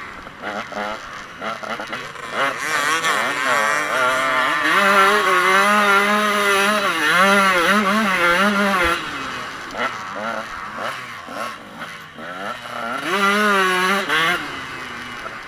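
Motocross bike engine heard close up from on board, revving up and down as the rider works the throttle along a dirt track. The revs climb and stay high from about four to nine seconds in, drop away, then rise again near the end.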